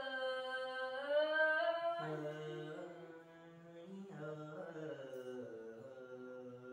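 Unaccompanied singing of a Tai-language folk song (khắp), in long held notes that waver slowly. The voice drops to a lower pitch about two seconds in.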